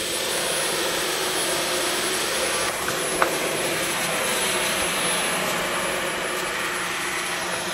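Dyson V15 Detect cordless stick vacuum running steadily, with a thin high whine over the rush of air. There is a small tick about three seconds in.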